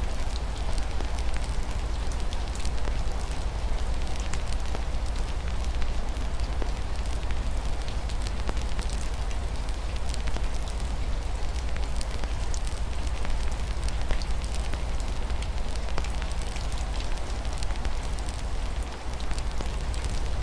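Wood fire crackling, with frequent small pops and snaps scattered over a steady low rumble, mixed with the even hiss of rain falling on a window.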